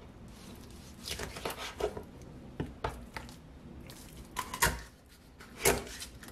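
Kitchen knife cutting up a raw chicken on a plastic cutting board: a series of irregular sharp knocks as the blade strikes the board, with softer sounds of the meat being handled between them.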